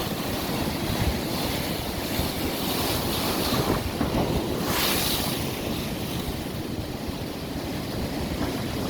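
Sea waves washing onto the shore, with wind buffeting the microphone as a steady low rumble; a wave breaks and hisses up the beach about five seconds in.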